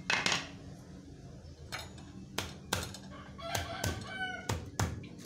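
Kencur (aromatic ginger) rhizome being crushed with a hard tool: about eight irregular knocks. A bird calls in the background near the middle.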